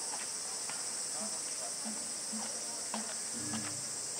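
Cicadas droning steadily in a high pitch, with a few faint clicks.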